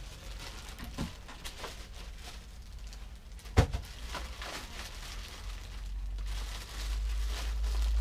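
Handling noises as a power cord in plastic packaging is pulled from a portable fridge: faint rustling and small clicks, with one sharp knock about three and a half seconds in, over a steady low hum.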